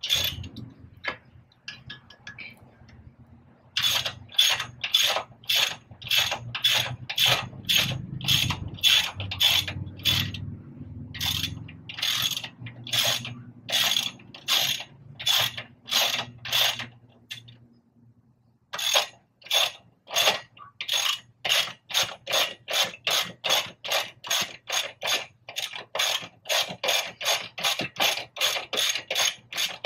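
Hand ratchet wrench clicking through quick repeated back-strokes as a bolt is turned, two to three strokes a second, breaking off for about a second midway and then picking up slightly faster.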